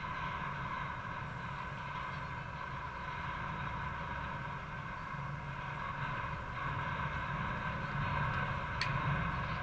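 Steady background rumble with a constant hum. About nine seconds in there is a single sharp crack as the pitched softball reaches the plate.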